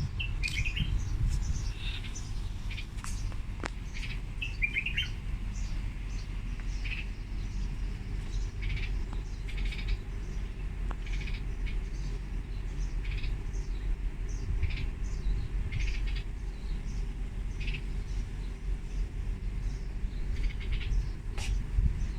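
Small birds chirping with short, repeated calls, a few notes every second or two, over a steady low rumble.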